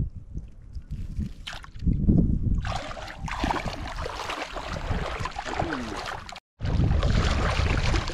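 Shallow water sloshing and splashing around bare feet wading through it, with a steady rushing noise; the sound cuts out briefly about six and a half seconds in.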